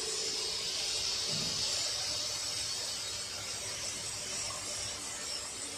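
Steady hissing background noise with a faint hum underneath, even throughout.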